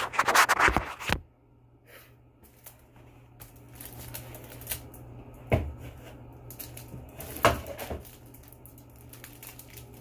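Packaging and plastic wrap rustling and crinkling as a wrapped keyboard is taken out of its box. There is a loud handling noise right at the microphone in the first second, then scattered small clicks and rustles, with two sharper knocks around the middle.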